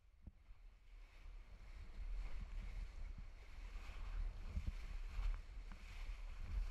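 Whitewater rapids rushing and splashing around a raft, with low rumbling buffets of wind and water on the microphone; the rush grows louder about two seconds in.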